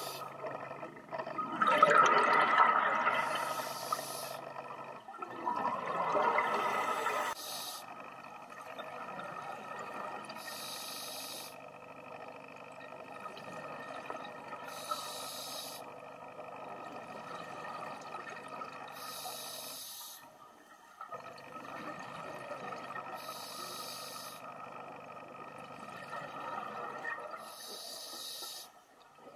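Scuba diver breathing through a regulator underwater: bubbling exhalations in the first few seconds, then a short hiss of inhaling about every four seconds, over a faint steady tone.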